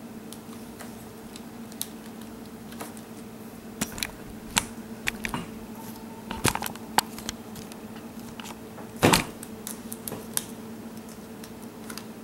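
Scattered light clicks and taps of laptop parts being handled and fitted back together during reassembly. There is a short flurry about six and a half seconds in and a louder knock about nine seconds in.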